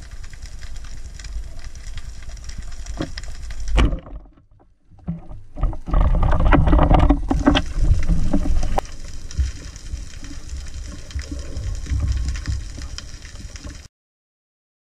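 Underwater water noise: a steady low rumble with scattered clicks and knocks. After a brief drop about four seconds in comes louder churning water noise with knocks, and the sound cuts off suddenly near the end.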